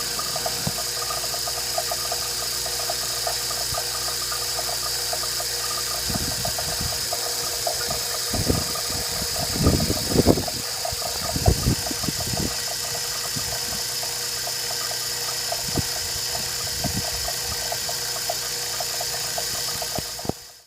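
Refrigeration vacuum pump running steadily while an HVAC system is evacuated, with a few knocks and clicks around the middle. The sound cuts off abruptly near the end.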